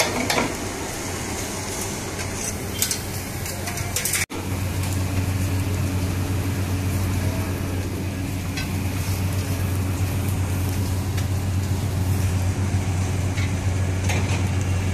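Commercial kitchen noise: food sizzling in pans over gas burners with a few sharp metal clinks. After a sudden cut about four seconds in, a strong steady low hum takes over.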